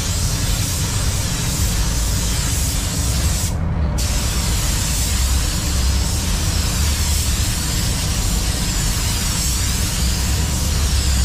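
Hiss of a SATA jet X 5500 RP compressed-air spray gun spraying clear coat onto a car body, over a steady low rumble. The hiss cuts out for about half a second, a few seconds in, then resumes.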